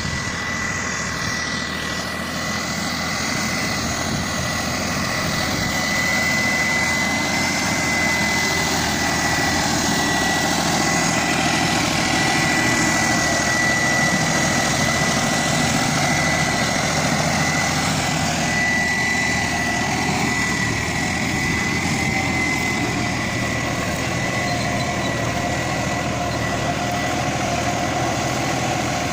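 Tümosan 6065 tractor's diesel engine running steadily while pulling a five-furrow mouldboard plough, with a thin steady high whine over the engine note. The engine picks up slightly in the first few seconds, then holds even.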